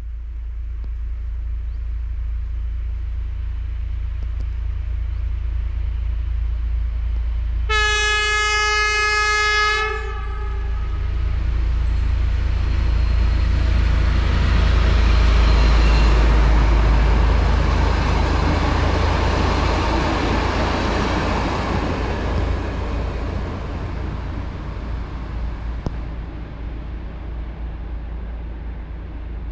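SU46 diesel locomotive hauling passenger coaches, approaching with a rising engine rumble. About eight seconds in it sounds its horn once for roughly two seconds. The train then passes with wheel and rail noise that swells to its loudest midway and fades slowly as it moves away.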